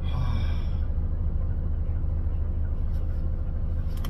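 Steady low rumble of a coach bus's engine and running gear, heard from inside the passenger cabin.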